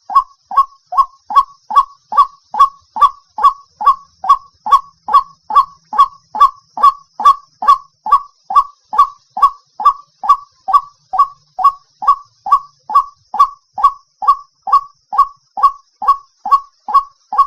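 White-breasted waterhen call: a loud, steady run of harsh 'kwak' notes repeated a little over twice a second, each note centred around one pitch. This is a recorded lure call of the kind played to draw waterhens into traps. A faint steady high hiss runs underneath.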